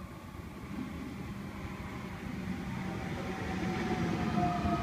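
Sydney Trains Millennium double-deck electric train arriving at the platform, its rumble growing louder as it draws in. Over the rumble runs an electric whine of several tones, falling slowly in pitch as the train slows.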